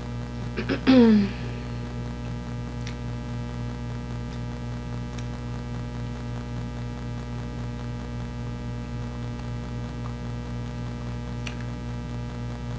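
Steady electrical mains hum, with a brief falling vocal sound from the woman about a second in and a few faint light ticks.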